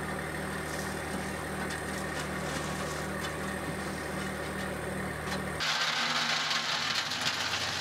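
Compact tractor's diesel engine running steadily with an even, pulsing hum. About five and a half seconds in, the low drone cuts off abruptly and a brighter hiss takes over.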